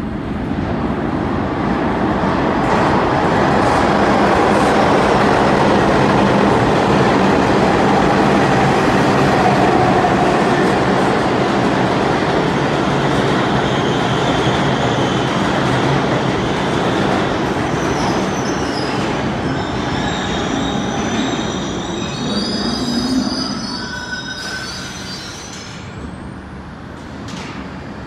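New York City subway express train running through the station on the center tracks without stopping: loud, steady rail noise with a low motor hum. High wheel squeals join from about halfway through, and the noise eases off near the end.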